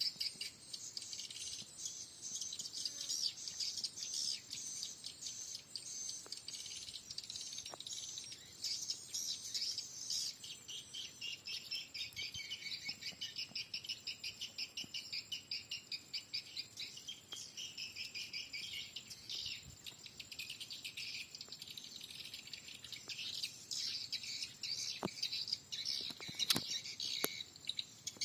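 Swiftlet calls at a swiftlet house's bird entry hole: a dense, rapid, high-pitched twittering that pulses several times a second, from the house's lure speakers and the swiftlets flocking to them. A few sharp clicks near the end.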